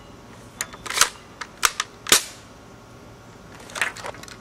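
Bolt of a UHC Super 9 Pro spring-powered airsoft sniper rifle being worked, making a quick series of sharp clicks and clacks in the first couple of seconds, then a softer clatter near the end.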